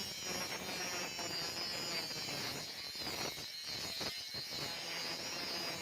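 A power tool running steadily on metal with a high whine, the sound dipping briefly a few times near the middle.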